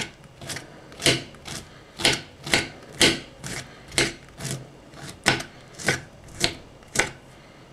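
Kitchen knife chopping artichoke stems into very fine pieces, the blade knocking sharply on the cutting board about two to three times a second at an uneven pace, stopping near the end.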